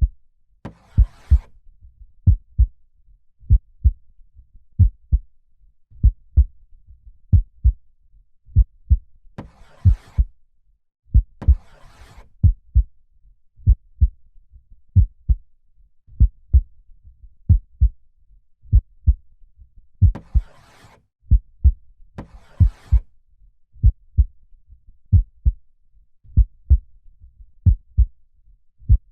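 Slow, steady heartbeat, each beat a double lub-dub thump, a little under one beat a second. A slow breath in and out is heard over it every ten seconds or so, three times.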